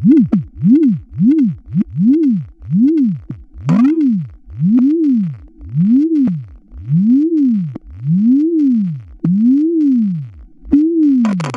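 Computer-generated bytebeat-style audio from a GDI malware payload: a synthetic tone that sweeps up in pitch and straight back down over and over, each rise-and-fall a little slower than the one before. Faint clicks and a short noisy burst sit on top, with a louder burst near the end.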